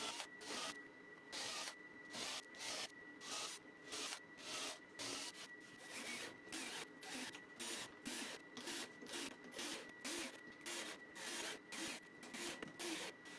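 Rhythmic back-and-forth rubbing strokes of a hand tool on wood, about two to three a second and evenly paced, over a faint steady high tone.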